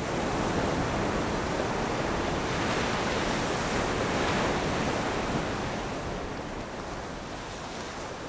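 Ocean surf: waves breaking and washing in as a steady rushing hiss, easing slightly near the end.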